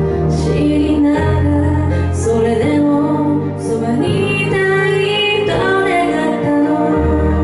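A woman singing a Japanese pop song live into a handheld microphone, over instrumental accompaniment with sustained bass notes.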